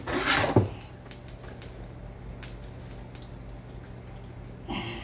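A utensil stirring through a pot of baked beans and ground beef, a brief wet, squishy scrape about half a second long at the start. After it, only a steady low hum with a few faint clicks, and a short scrape near the end.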